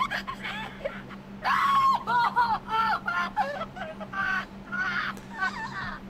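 AI-generated sound effect of a man laughing and crying by turns. A long wailing cry starts about a second and a half in, followed by choppy, broken bursts of laughing and sobbing. It sounds like more than one person.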